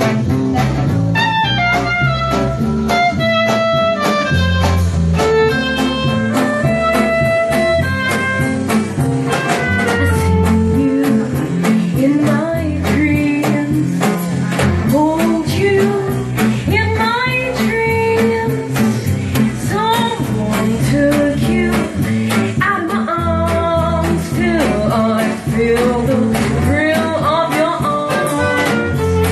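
A small live band plays a jazzy blues tune: acoustic and electric guitars, and drums with cymbals. Over them a woman sings held, wavering notes.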